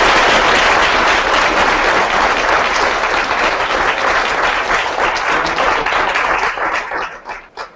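Audience applauding: a dense wash of clapping that thins to a few scattered claps and dies away near the end.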